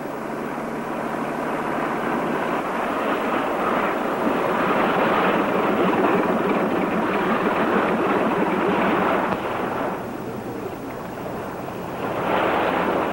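Motorboat engine running steadily under way, with the rush of water against the hull; it eases slightly about ten seconds in and picks up again near the end.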